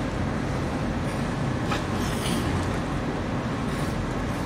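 Steady low rumble of a container ship's engines across the harbour water, with no breaks.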